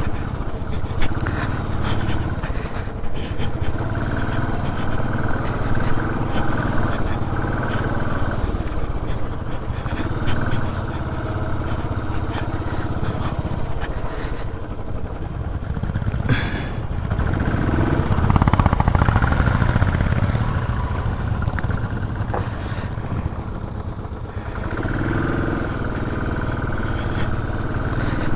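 Benelli TRK 502's parallel-twin engine running as the motorcycle rides a rough dirt trail, with scattered knocks from the bike over the ground. The engine gets louder for a couple of seconds about two-thirds of the way through.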